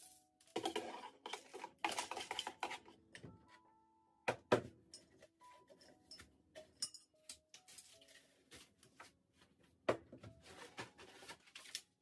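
Small desk items being picked up, sorted and set down: rustling and light clattering in two spells, with a couple of sharp knocks about four and a half seconds in, over soft background music.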